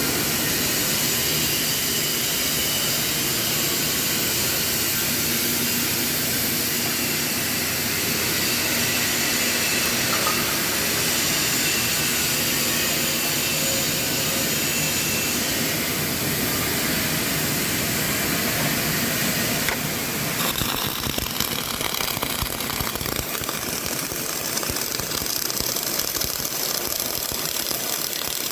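CO2 (MIG) welding arc crackling steadily as a bead is laid. About twenty seconds in, the crackle turns choppier and more uneven.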